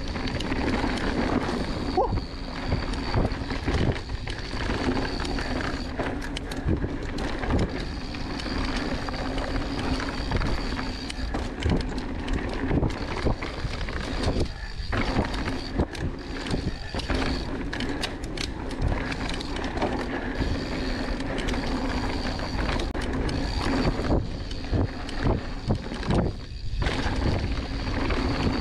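Mountain bike riding fast down a dirt singletrack: tyres rolling over the ground, with many short knocks and rattles from the bike over rough terrain.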